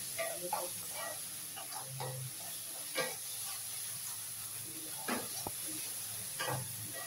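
Wooden spatula scraping and knocking against a non-stick kadai in irregular strokes, the loudest about three seconds in, over a quiet sizzle of onion-tomato masala frying with ginger-garlic paste. The paste is being sautéed until its raw smell is cooked off.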